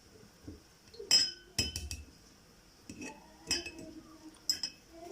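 Kitchen utensils clinking and knocking against a glass bottle while a homemade honey cough syrup is strained and pressed through. Several sharp, separate clinks, the loudest about a second in.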